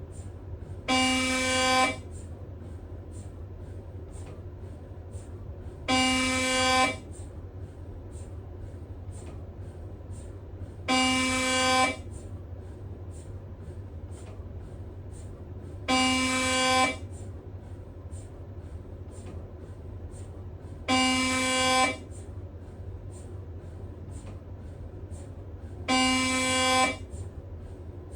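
A Siemens Magnetom Spectra 3-tesla MRI scanner's gradient coils sound a loud pitched buzz about a second long, six times at even five-second intervals. A steady low hum and faint regular ticks run in between.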